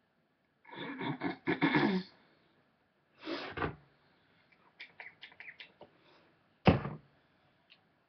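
Close handling noise at the microphone: rustling bursts, then a quick run of about eight light clicks, and one sharp knock near the end, the loudest sound.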